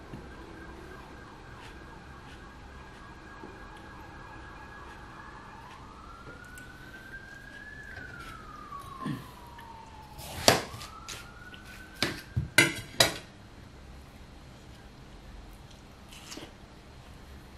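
An emergency vehicle siren sounds a steady tone, then slow rising and falling wails. About halfway through come several sharp knocks, the loudest sounds here, as a kitchen knife cuts watermelon slices against the serving plate.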